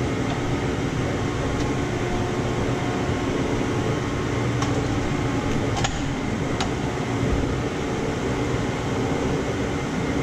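Steady mechanical hum of workshop background noise, with a few light metallic clicks and knocks about halfway through as a rotary engine rotor is handled and set on the bed of a hydraulic shop press.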